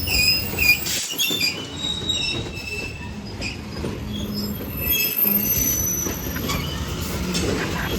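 Cars of a Union Pacific manifest freight train rolling past, a steady rumble of wheels on rail with many short, high-pitched wheel squeals coming and going.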